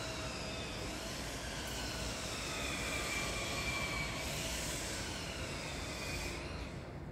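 Jet aircraft passing high overhead: a steady, distant rumble with a faint whine that slowly falls in pitch. The hissing top of the sound drops away near the end.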